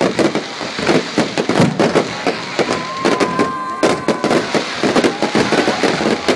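Fireworks display: a dense, rapid run of bangs, pops and crackling that goes on without a break. A steady whistling tone sounds for about a second in the middle.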